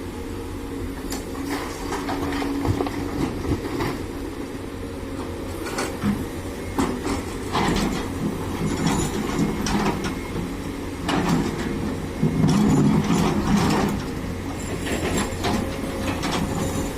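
Doosan DX200A excavator's diesel engine running under hydraulic load, with irregular clanks and knocks of the bucket and stones as stone-mixed soil is dug and loaded into a dump truck. The engine grows louder for a couple of seconds about twelve seconds in.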